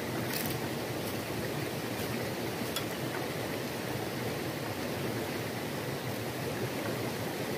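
Steady rushing of river water, with two faint clicks of a utensil against the pan.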